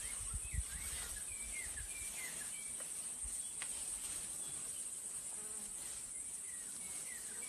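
Insects droning steadily at a high pitch, with short bird chirps scattered throughout. A low rumble sounds in the first second or so.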